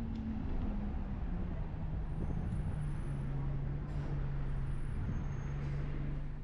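Bus running along the road: a steady engine drone with road noise, its hum dropping in pitch over the first few seconds and then holding steady.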